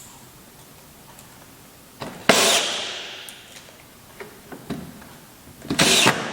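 Two loud, sharp knocks, one about two seconds in and another near the end, each ringing off over a second, with a few light clicks between: tool work on wood in a workshop.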